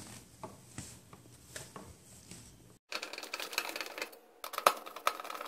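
Screws being driven by hand with a screwdriver into the sheet-metal terminal cover on the back of an electric range: light handling clicks, then after a brief break a quick run of scraping clicks as the screw threads bite into the metal, with a few sharper clicks near the end.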